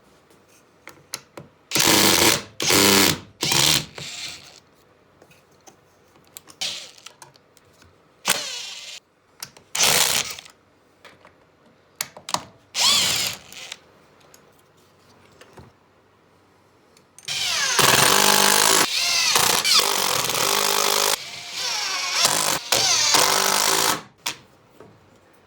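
Handheld power drill/driver turning screws. It runs in several short trigger bursts, then one longer run whose motor pitch rises and falls.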